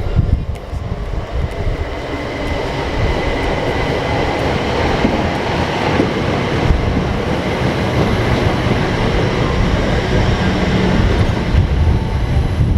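Passenger train pulling into the station platform: a steady rumble of wheels on the rails, with a faint high squeal in the first half.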